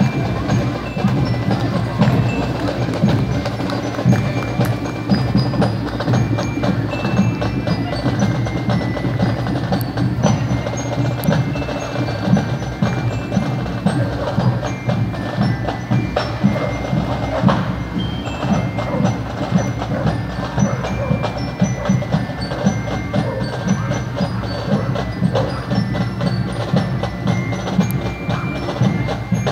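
Parade marching band playing: short, bright bell-lyre (glockenspiel) notes ring over drum and stick clicks and a dense low band sound.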